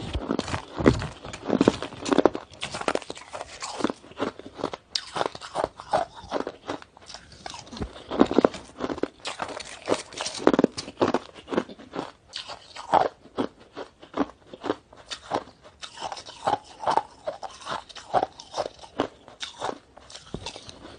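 Shaved ice crunched and chewed in the mouth: a continuous run of crisp bites and chews, several a second.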